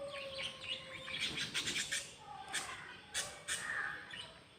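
Pigeon pecking at ash in a coconut shell: a quick run of beak taps about a second in, then a few single taps, with birds chirping in the background.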